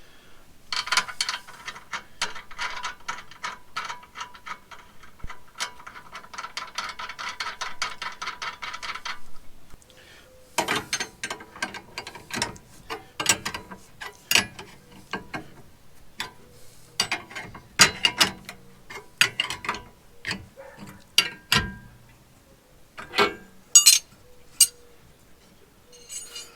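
Ratchet wrench clicking in a fast run as a bolt is tightened, then slower, separate ratchet clicks and metal clinks with pauses in between.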